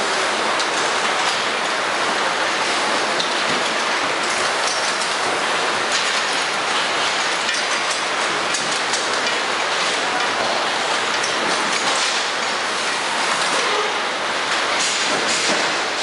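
Steady, loud background din of a car assembly plant's floor, with faint clinks now and then.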